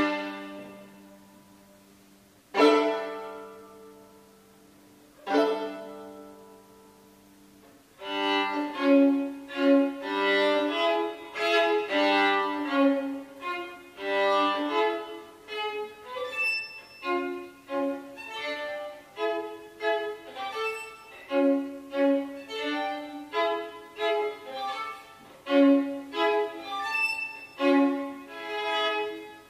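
Solo violin. A chord fades out, then two plucked pizzicato chords sound a few seconds apart and are each left to ring. About eight seconds in the bow takes over with short bowed double-stops and chords in a stumbling, irregular rhythm that speeds up and slows down.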